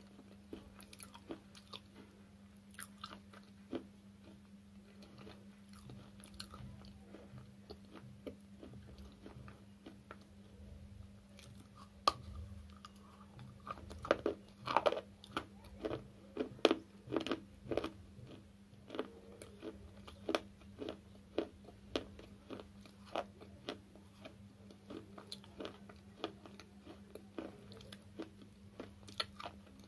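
Dry slate chips bitten and chewed close to the microphone: a run of sharp, crisp cracks, thickest and loudest around the middle. A steady low hum runs beneath.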